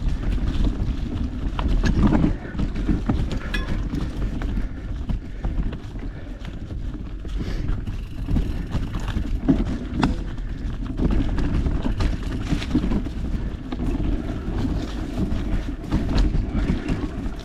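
Mountain bike ridden over rough dirt trail: a steady low rumble of wind buffeting the action camera's microphone and tyres on the ground, broken by frequent short clatters and knocks from the bike over bumps.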